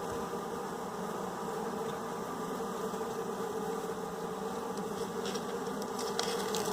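Honey bees buzzing steadily at an open hive, a massed hum around the queen as the workers cluster on her. A few faint clicks come in near the end.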